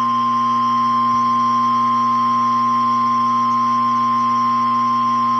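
Emergency Alert System attention signal over a radio broadcast: one steady, unbroken high single tone just above 1 kHz, the 1050 Hz weather-radio warning alarm that precedes a tornado warning message. A steady low hum runs underneath it.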